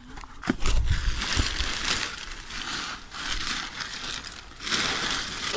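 Irregular crunching and rustling with a few dull knocks about half a second to a second and a half in, as logs and brush are moved about while searching a woodpile.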